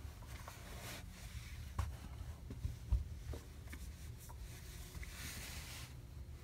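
Soft rustling and scuffing as a sneaker is worked off one foot and the bare foot is set down on a leg cast, with two light knocks about two and three seconds in. A low, steady room hum sits underneath.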